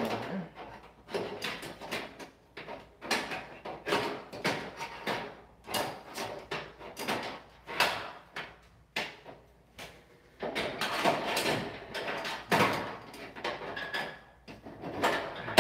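A metal clip being worked into a hollow steel door frame: irregular metallic clicks, knocks and scrapes of the clip against the frame, with a brief lull past the middle.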